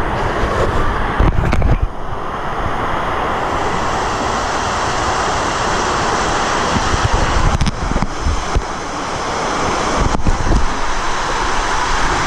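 Water rushing and wind buffeting the microphone as a raft tube slides down a water slide, with a few brief thumps along the way.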